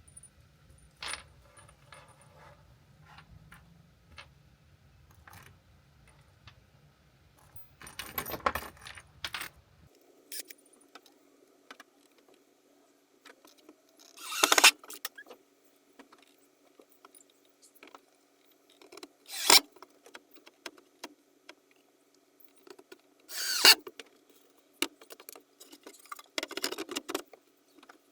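Pine bed-base slats being handled and fitted: scattered clicks and wooden knocks, with five short, loud bursts of noise spread through.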